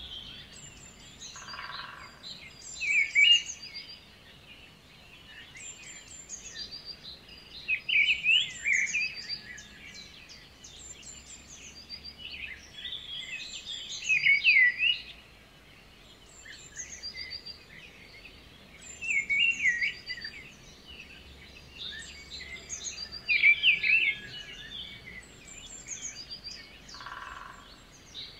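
Birds chirping and twittering, with clusters of louder, quick chirps about every five seconds over softer high twitters.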